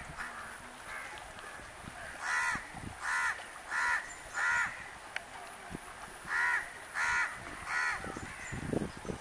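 A bird cawing, seven short harsh calls: four in a row about two seconds in, then three more after a pause.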